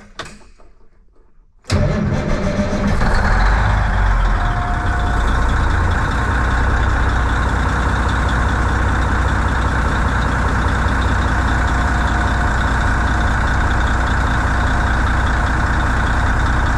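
Truck's Cummins diesel engine starting about two seconds in and settling into a steady idle. The engine has been stalling and throwing an ECM fault code that reads as no power to the fuel solenoid.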